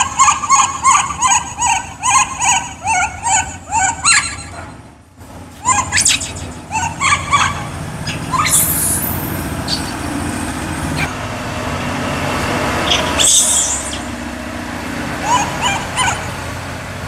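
Baby macaque crying in quick, repeated short calls, about two or three a second, for the first few seconds, then in scattered calls later on. A steady rumble fills the middle stretch.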